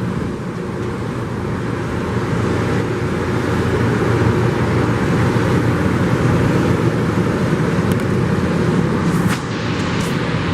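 Loram rail grinding train at work, its grinding stones on the rail and its diesel engines making a loud, steady, harsh noise with a low rumble that grows louder over the first few seconds as it comes closer.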